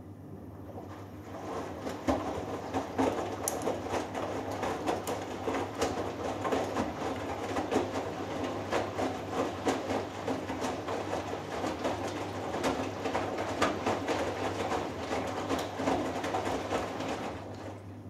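Hoover Dynamic Next washing machine tumbling a 3 kg cotton load through the final rinse: water sloshing and wet laundry splashing, with many small clicks and knocks over a steady low hum. The tumbling starts about a second in and stops near the end.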